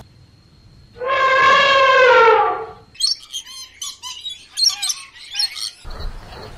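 An African elephant trumpets once, a loud call of about two seconds that sags in pitch at the end. Then meerkats give a quick run of short, high chirps for about three seconds.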